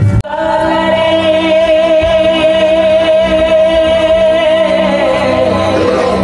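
Song music for a stage dance: a singer holds one long note with vibrato over a steady accompaniment, the note sagging slightly lower near the end.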